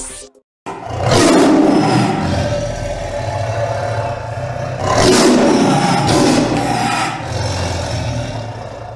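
Dramatic roaring sound effect, two loud swells about four seconds apart over a low steady drone.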